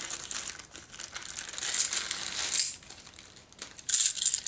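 Clear plastic bag crinkling as it is handled and unwrapped from a stack of silver half dollars, in irregular spells, the second near the end.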